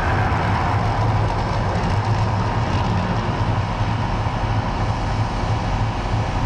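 Mirage Volcano eruption show: a loud, steady low rumble with a dense rushing noise over it as the show's fire jets burn across the lagoon.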